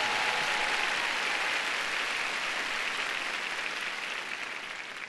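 Arena audience applauding, the applause slowly dying away and fading out near the end.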